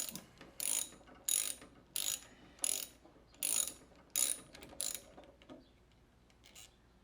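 Hand ratchet wrench clicking in a run of about eight quick back-and-forth strokes, turning a bolt on a 5.7 Hemi's cam phaser, then stopping about five seconds in.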